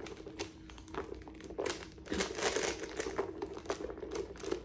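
A quilted leather Saint Laurent envelope bag being handled and turned over: its gold metal chain strap clinks and the bag rustles in a string of small irregular clicks and crinkles.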